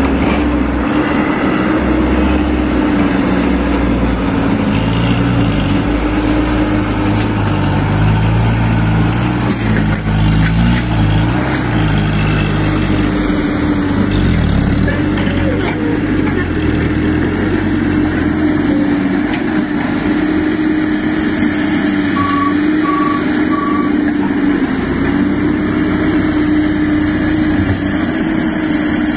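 Diesel engine of a light dump truck loaded with soil, running as it moves over the dirt, with a steady hum and engine notes that shift up and down. Three short high beeps sound in the last third.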